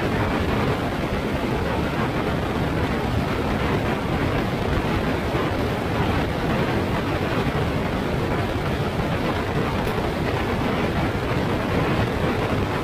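Steady rumbling road and wind noise of a vehicle on the move, heaviest in the low end, with no clear engine note standing out.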